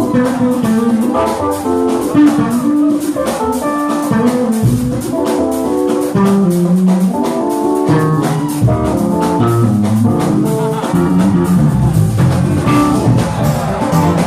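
A jazz-fusion band playing: guitar melody over bass and drum kit.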